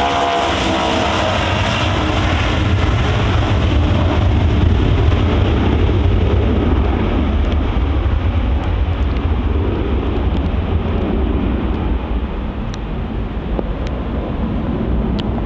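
Boeing 757 jet engines at take-off power as the aircraft rolls past, lifts off and climbs away. Whining engine tones fade in the first second, leaving a deep, steady roar that slowly dulls as the aircraft pulls away.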